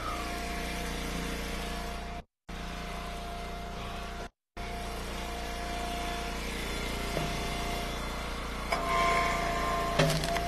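Eastonmade Ultra log splitter running steadily, with a couple of knocks of wood late on and a brief higher-pitched tone near the end. The sound cuts out completely twice in the first few seconds.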